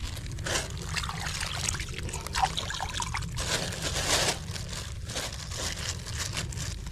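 Wet mud squelching and a plastic sack crinkling as a soil-filled sack is trodden down to dam an irrigation ditch, with water trickling around it, in irregular bursts.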